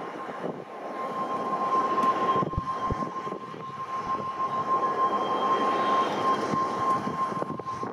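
A jet airliner's engines running on the runway: a steady rushing noise with a high whine held on one pitch, growing louder about two seconds in.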